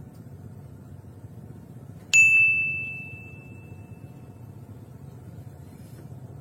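A single bright ding from a small metal bell, struck once about two seconds in, its clear high tone fading away over about two seconds, over a steady low background rumble.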